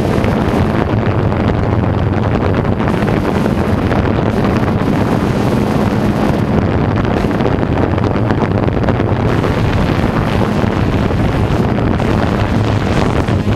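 Steady hum of a Phantom Vision 2+ quadcopter's motors and propellers in flight, mixed with rushing wind noise on the microphone.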